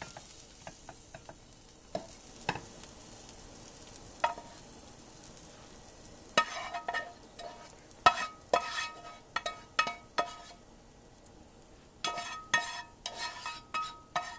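Cooking utensil scraping and knocking cooked vegetables out of a pan into a bowl. It begins as a few light clicks over a faint background, then from about six seconds turns into a quick run of ringing clinks and scrapes.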